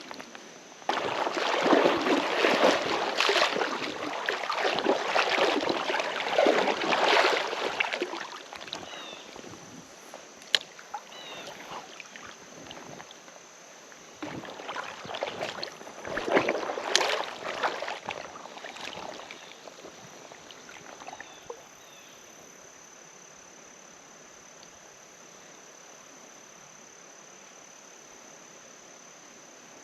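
Creek water sloshing and splashing in irregular bursts, as of someone wading through a shallow stream, in two stretches with a pause between. Afterwards only a faint steady hiss of flowing water with a thin high-pitched steady tone above it.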